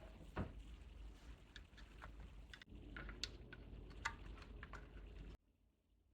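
Hands handling unboxed toys and packaging: scattered small clicks and taps over faint rustling, cutting off abruptly near the end.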